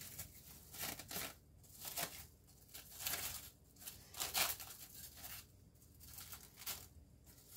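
Plastic wrap crinkling in soft, irregular crackles as it is stretched over a bowl of sourdough starter to cover it.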